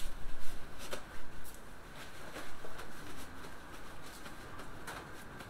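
Scattered light clicks and taps of hands handling kitchen items at a work table, most in the first second and a half and one more near the end, over a low background rumble.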